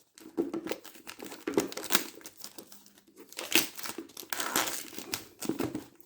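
Toy packaging being opened by hand: plastic and cardboard crinkling and tearing in irregular bursts of crackle.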